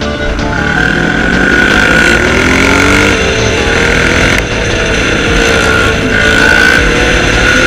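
ATV engines running under throttle, one revving up in pitch over a couple of seconds about a second in, then holding steady.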